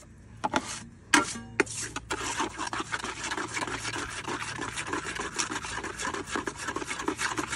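Metal taping knife mixing setting-type joint compound with water in a metal mud pan, scraping against the pan. A few separate scrapes come first, then fast, continuous back-and-forth mixing strokes from about two seconds in.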